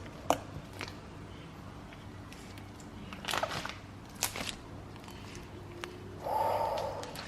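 Homemade slime being kneaded by hand, giving a few sharp pops and crackles as air bubbles in it burst, with a brief louder sound near the end.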